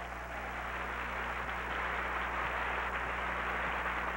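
Audience applause, a steady, even clatter that swells a little in the first second and then holds, over a low steady hum.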